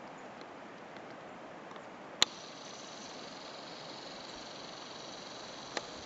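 A camcorder's zoom motor, driving the lens in: a sharp click about two seconds in, then a thin high whine for about three and a half seconds, ending in a softer click. Under it runs a steady faint hiss.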